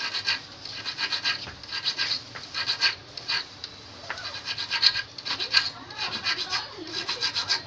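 A small needle file scraping the point and barb of a steel fishing hook in quick back-and-forth strokes, in short runs broken by brief pauses.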